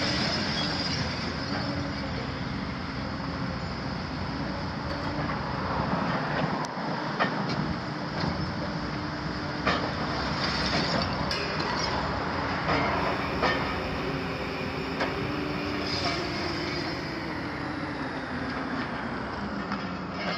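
Hitachi 250 long-front demolition excavator's diesel engine and hydraulics running under load, with a held tone that steps up and down in pitch as the boom works. Its demolition jaws crunch masonry at the top of the wall, giving sharp knocks and cracks every second or so through the middle.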